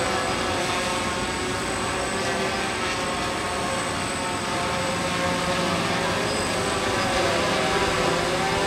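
A hexacopter's six electric motors and propellers hovering overhead: a steady buzzing whine of several tones at once, their pitches drifting slightly up and down as the motors adjust.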